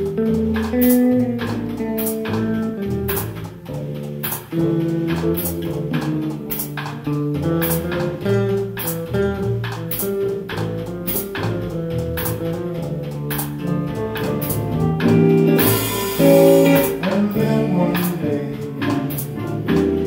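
Live jazz combo playing an instrumental passage: electric guitar lead over upright bass and drums keeping a steady cymbal beat, with a brief cymbal wash about three-quarters of the way through.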